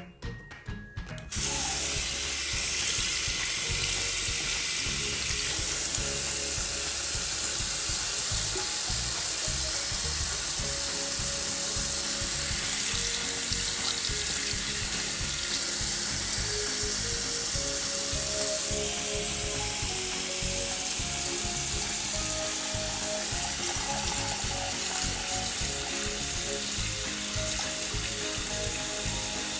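Small battery-powered makeup brush and sponge cleaner spinning: a steady whirring hiss with a fast rattle from its little motor and spinner, starting about a second in. Background music plays faintly under it.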